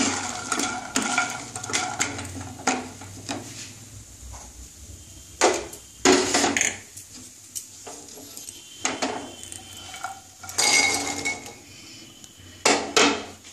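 A wooden spatula scrapes and knocks against a non-stick wok while stirring hard, fried lentil dumplings (bori). This is followed by intermittent clacks of kitchenware, and near the end the dumplings clatter as they are tipped out of the wok into a bowl.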